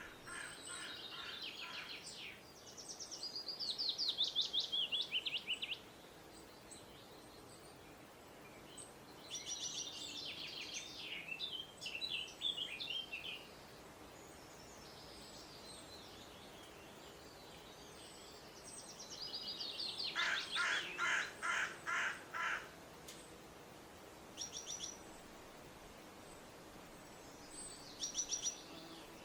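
Songbirds singing: phrases of rapid, high trilled notes, each lasting two to four seconds, with pauses of several seconds between them. One phrase comes about nine seconds in and another about twenty seconds in, with a brief call near the end.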